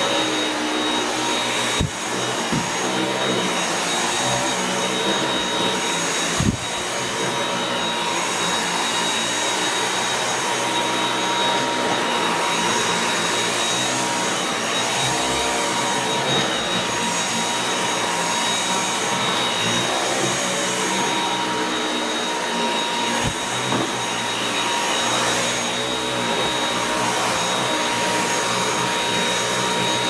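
Dyson V8 cordless stick vacuum running on standard suction, a steady motor whine over the rush of air, as its floor head is pushed back and forth over carpet. Three brief knocks come about 2, 6 and 23 seconds in.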